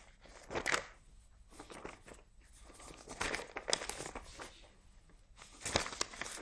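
Paper rustling and crinkling as sheets are handled, in irregular bursts, with louder ones about half a second in, around three to four seconds in, and near the end.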